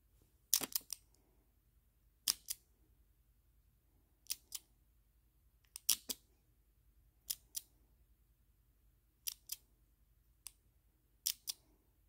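Steel shackle of a dial combination padlock being tugged up against the lock body and let go, giving sharp metallic clicks, mostly in pairs, every second or two.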